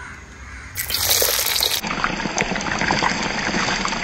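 Sliced shallots tipped into hot oil in a wok, starting to sizzle and crackle loudly about a second in and frying on steadily.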